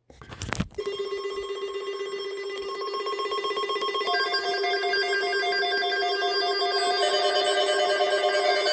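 Electronic alert tone: a rapid, steady trill on a low pitch after a short burst at the start, joined about four seconds in by a higher beeping tone that pulses on and off.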